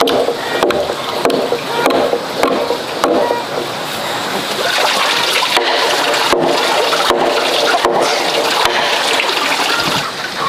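Heavy wooden beams knocking and sliding against each other for the first few seconds, then a steady rush of running stream water.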